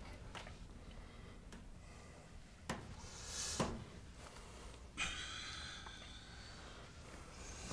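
A person breathing heavily with sniffs and gasps, with two short sharp clicks about a second apart in the middle.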